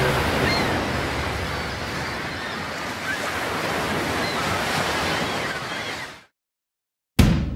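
Ocean surf, a steady rushing wash of sea noise that slowly thins and then fades out about six seconds in. A drum beat starts just before the end.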